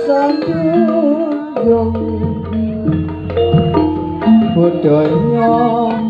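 Jaranan gamelan accompaniment playing: a hand-drum rhythm under a melody of stepped, held notes, with a wavering high melody line over it.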